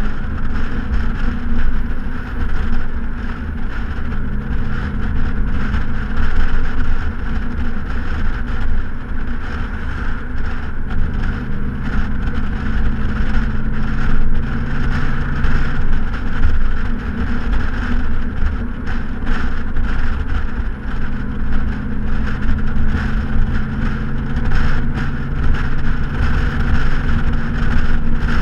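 2014 Ford Mustang GT's straight-piped 5.0-litre V8 exhaust droning at a steady cruise, its pitch nearly constant, with wind and road noise over it.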